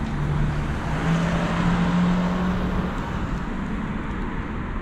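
A motor vehicle's engine running close by amid traffic noise. Its hum rises slightly in pitch and swells in the middle before easing off, like a car pulling past.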